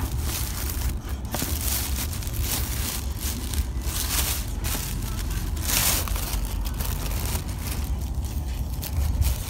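Plastic shopping bag rustling and crinkling as it is handled right against the microphone, in repeated short crackly bursts over a steady low rumble.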